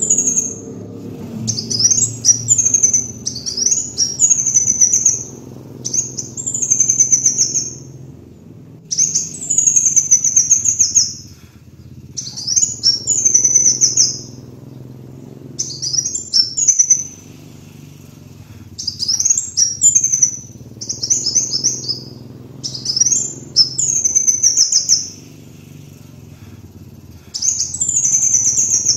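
Kolibri wulung sunbird singing: repeated high, fast twittering phrases of one to two seconds each, with short pauses between them, over a steady low hum.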